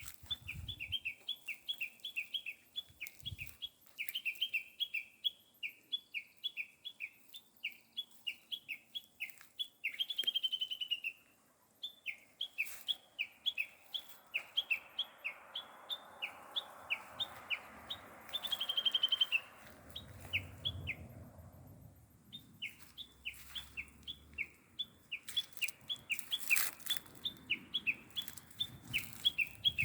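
Small bird chirping rapidly: short high chirps repeated several times a second in long runs, twice breaking into a brief rising trill and pausing for a moment. A few clicks are heard near the end.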